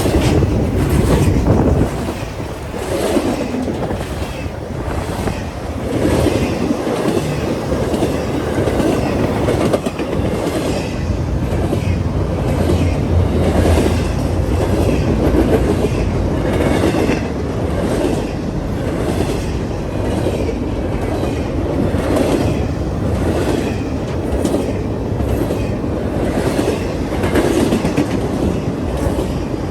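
A train rolling past at close range, its wheels clacking over the rail joints in a steady, regular rhythm over a continuous rumble.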